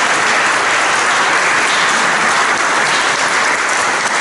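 Audience applauding: a steady round of clapping that holds at one level throughout.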